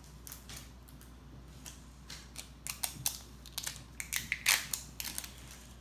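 Plastic of an L.O.L. Surprise toy ball being pulled and peeled open by hand, crackling in a string of small irregular clicks that grow thicker and louder about four seconds in.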